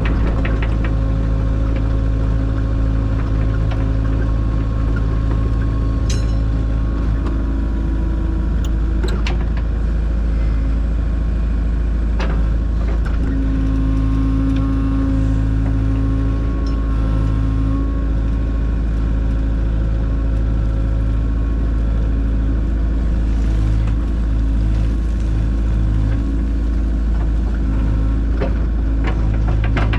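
Kubota KX057-4 mini excavator's diesel engine running steadily, with a stronger, brighter engine tone for a few seconds in the middle and occasional short knocks.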